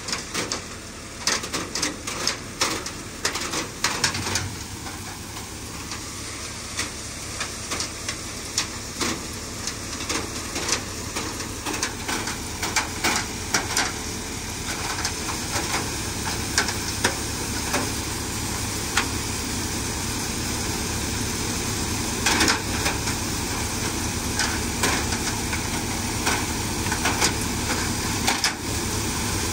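Tractor-driven thresher running steadily while dry chickpea plants are fed in, with frequent sharp clicks and knocks over the machine's noise. A low hum grows stronger about four seconds in.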